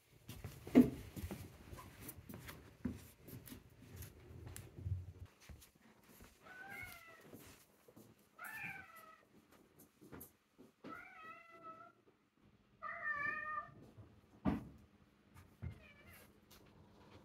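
A house cat meowing four times, about two seconds apart, each meow drawn out and wavering in pitch, then a fainter meow near the end. A sharp knock about a second in is the loudest sound, with low bumping and clicks over the first few seconds and another knock later.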